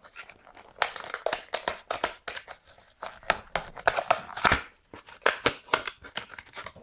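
Hot Wheels plastic blister pack on its cardboard card crinkling and crackling as it is handled and turned over, in quick irregular clicks with a louder crackle about four and a half seconds in.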